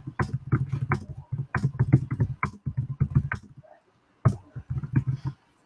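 Typing on a computer keyboard: quick, irregular runs of key clicks that pause a little before four seconds in, then a few more keystrokes.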